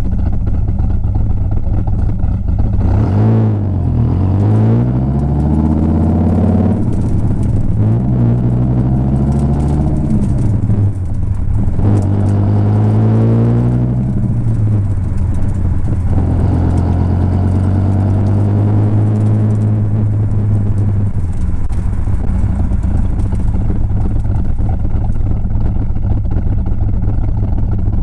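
Dodge Viper V10 exhaust on the move, steady at first, then the revs rise and fall several times. The engine then holds a steady note, and runs lower and steadier for the last third.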